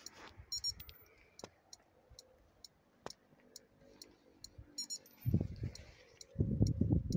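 Faint, evenly repeating high ticking, several ticks a second. From about five seconds in, bursts of low rumbling noise on the microphone become the loudest sound.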